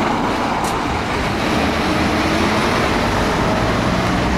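A canvas-covered military cargo truck driving past on a gravel road, its engine running steadily under the noise of tyres and road. The low rumble gets heavier near the end as the truck's rear passes close by.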